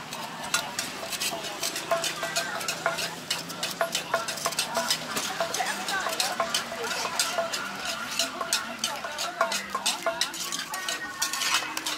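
Metal spatula scraping and clicking against a hot pan as a thin crepe is spread with filling and folded, in quick irregular strokes over a light sizzle.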